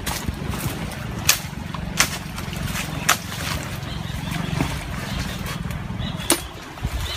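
Footsteps and bodies pushing through dense, dry undergrowth: a few sharp snaps and cracks of twigs and branches, over a low steady rumble.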